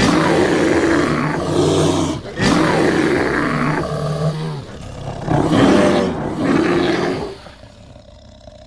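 Rajasaurus roar sound effect: a long, deep dinosaur roar in three phrases that starts suddenly, with short breaks about two and a half and four and a half seconds in, trailing off into a faint growl near the end.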